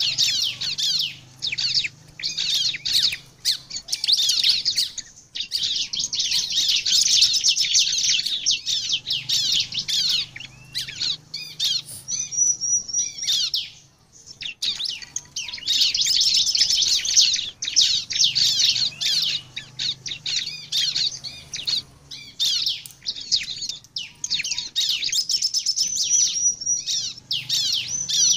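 Bar-winged prinia (ciblek) in full song ('gacor'): long runs of rapid, high chirping notes with short pauses, and a thin steady high whistle twice. It is the kind of song played as a lure ('pancingan') to set other prinias singing.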